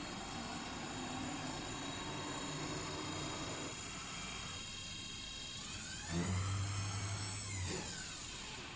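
CNC router spindle running with a steady high whine; a little over halfway through, its pitch falls away and then climbs back up, with a low hum and two brief louder moments in between.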